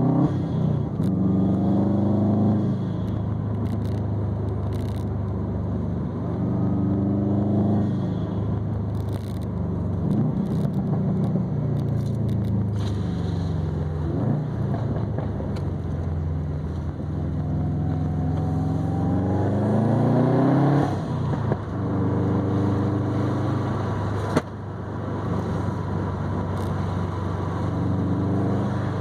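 Exhaust of a 2020 Subaru WRX STI's turbocharged flat-four, running through an ETS non-resonated catback and a Grimmspeed catted downpipe while the car is driven. The exhaust pitch climbs several times as the car accelerates through the gears and drops back at each shift, with one sharp click near the end.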